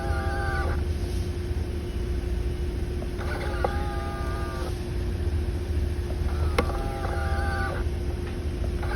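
Power-folding outside mirror's motor whirring in repeated bursts of about a second and a half, each beginning with a click, roughly every three seconds. This is a mirror that makes noise but does not fold.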